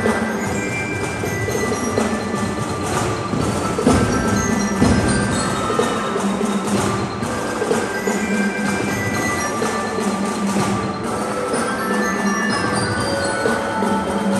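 Marching band playing a tune on drums and bell-like mallet percussion, with short ringing notes and regular drum strikes.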